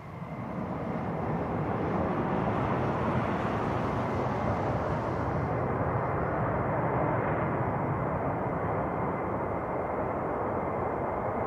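Fighter jet taking off, its engine noise swelling over the first two seconds and then holding loud and steady.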